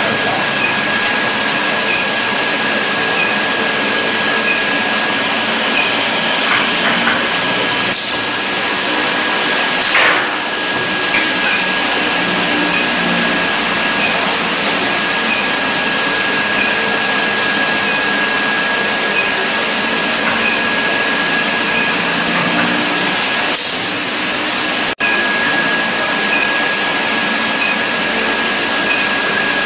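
Induction brazing machine running with a steady high whine over constant machine noise while it heats diamond segments to braze them onto a saw blade core. A few short clicks are heard about 8, 10 and 24 seconds in.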